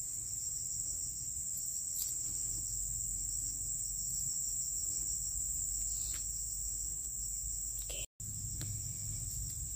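Steady high-pitched drone of an insect chorus, holding one unchanging pitch throughout, with a few faint clicks; the sound drops out completely for a moment a little after eight seconds in.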